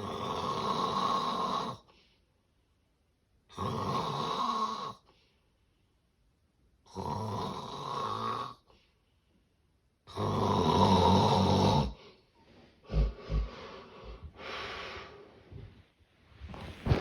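Severe sleep-apnea snoring: four loud, rough snores, one about every three and a half seconds and each under two seconds long, with quiet gaps between. About twelve seconds in, the regular rhythm breaks up into short, irregular snorts and breaths, typical of an obstructed airway.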